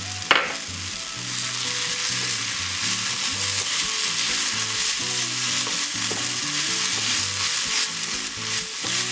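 Sliced onions sizzling as they fry in oil in a pan, stirred and turned with a spatula scraping through them. A single knock just after the start.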